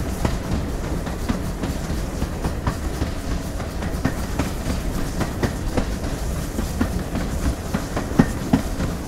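GWR Collett Goods 0-6-0 steam locomotive running along the line: a steady low rumble with irregular clicks and clanks.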